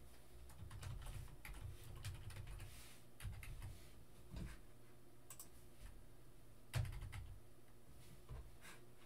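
Typing on a Logitech computer keyboard: scattered key clicks with soft thumps, and one louder thump about seven seconds in.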